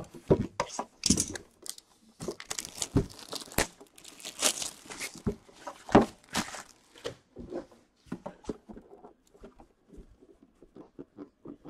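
Plastic shrink-wrap being slit and torn off a hockey card box: irregular crinkling and tearing, loudest in the middle, thinning out to lighter rustles near the end as the box is handled.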